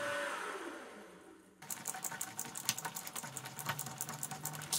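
A mill's drill spindle spinning down after drilling a steel block, its whine falling and fading over about a second and a half. Then a hand tap in a tap handle cutting threads into the steel, with many quick small clicks and scrapes.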